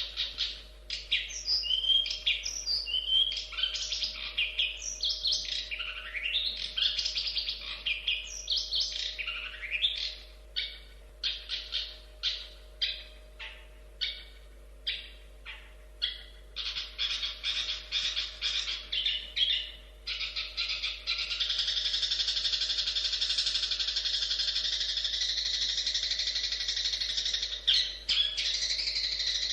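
Long-tailed shrike (cendet) singing: quick, varied warbling phrases, then a run of separate sharp notes about two a second, then a fast, continuous buzzy trill held for the last several seconds.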